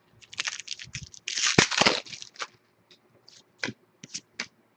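Trading cards being handled: a run of short papery slides and rustles, with a longer, louder rustle a little over a second in.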